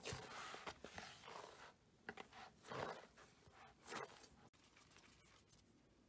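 A hand kneading soft, sticky pide dough in a bowl: the dough pressed and pulled apart in a few faint bursts over the first four seconds, then little sound.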